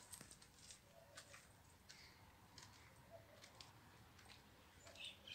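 Near silence, with faint scattered clicks and scuffs of footsteps on concrete steps and gravel, a little stronger near the end.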